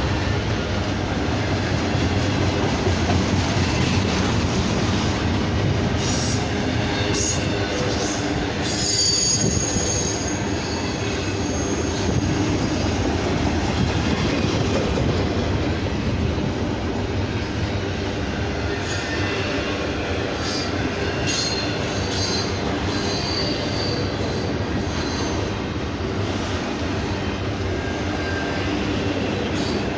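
Freight train cars rolling past with a steady rumble of wheels on rail, scattered clicks over rail joints, and thin high wheel squeal about a third of the way in and again in the second half.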